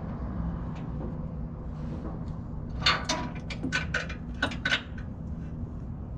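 Waltco hydraulic liftgate on a box truck being operated: a quick run of about seven metal clanks and rattles from about three to five seconds in, over a steady low hum.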